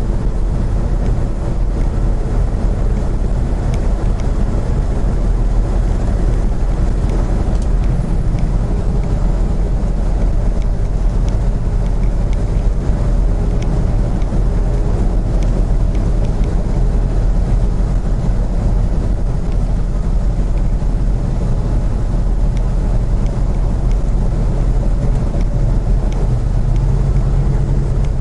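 Steady drone of a vehicle's engine and road noise, heard from inside the cab while driving.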